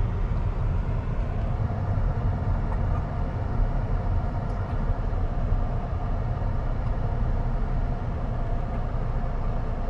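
Steady low rumble of a car driving, road and engine noise with no sudden events.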